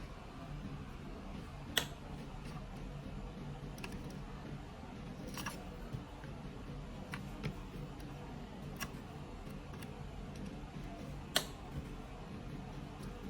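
Scattered light clicks and taps from hand work on a fusion splicer's cables and connectors, about half a dozen in all, the sharpest about two seconds in and near the end, over a steady low hum.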